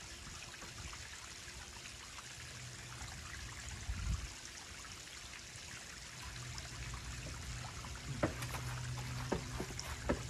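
Steady rushing of running water. A low thump comes about four seconds in, a low hum joins a couple of seconds later, and a few short sharp sounds come near the end.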